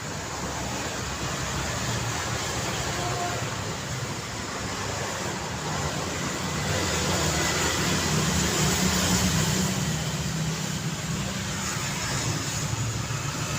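City street traffic: a steady wash of passing road vehicles, getting louder about halfway through.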